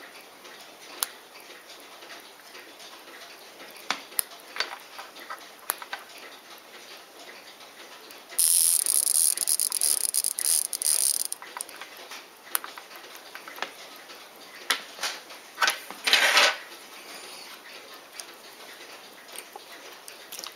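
Poljot Signal mechanical alarm-watch movement being handled, with scattered small clicks of the crown and works. About eight seconds in, the alarm goes off for about three seconds as a loud, high buzzing rattle. A shorter noisy burst comes about sixteen seconds in.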